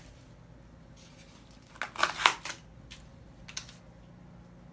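Shipping-box packaging being handled and cut open: a quick cluster of sharp clicks and rustles about two seconds in, and one more shortly after.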